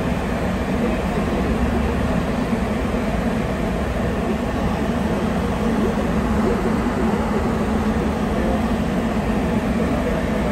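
Sapporo Subway Tōhō Line rubber-tyred train running at speed through the tunnel, heard from inside the car: a steady rumble with a low hum and no change in loudness.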